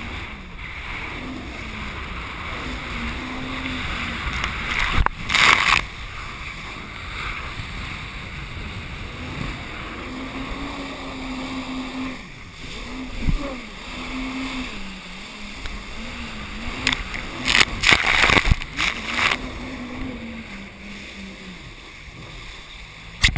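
Jet ski engine running at speed, its note rising and falling with the throttle, over a steady rush of water and wind. Several loud splashes break through, about five seconds in and again three times near the end.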